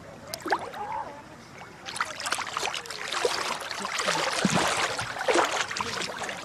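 Water splashing and sloshing as a man floating in the sea moves his arms and legs, getting louder and busier from about two seconds in.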